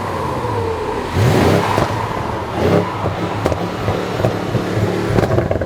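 Car engine revved in repeated blips, with sharp exhaust crackles and pops between them, a little popcorn.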